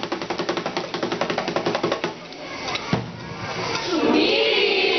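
A speaking chorus of many voices chanting one short syllable over and over in a rapid staccato, which dies away about two seconds in. A single sharp knock follows, and about four seconds in the chorus breaks into a loud, sustained group shout.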